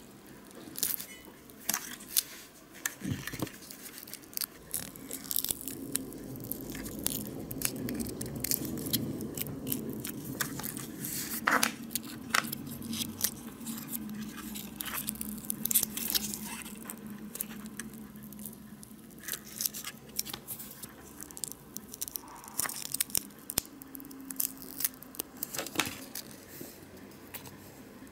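Close-up handling of small flexible polyurethane castings being pried and peeled out of a small casting mold and their thin flash torn off: a string of small clicks, crackles and scrapes.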